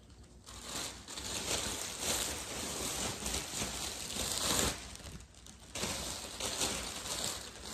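Clothes and a shopping bag being handled and packed, rustling and crinkling unevenly, with a brief lull about five seconds in.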